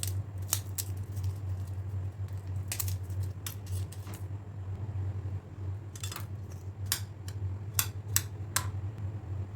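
Irregular sharp clicks and clinks of kitchen utensils, about a dozen in all, over a steady low hum.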